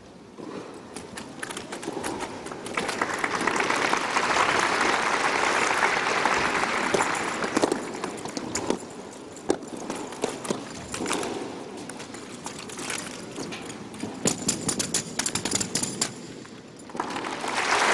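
Sharp clacks and knocks of an honour guard's drill rifles being slapped and struck in drill, in quick clusters, with a swell of crowd noise a few seconds in.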